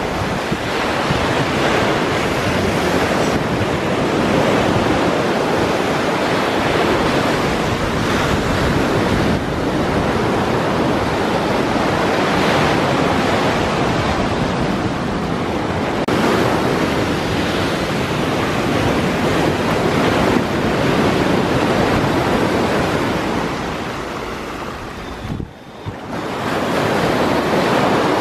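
Waves of a rough sea breaking on the shore, a loud, steady wash that swells and eases, with wind blowing on the microphone. The sound drops sharply for a moment near the end.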